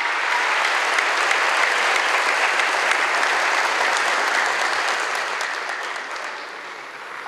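An audience in a large hall applauding, steady, then fading out over the last two seconds.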